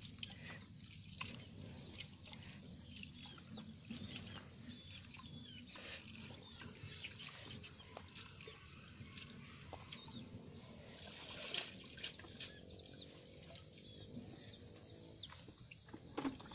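Faint soft wet handling sounds of rice-flour dough for khanom jeen being worked by hand in a plastic basin of water, with birds chirping faintly in the background.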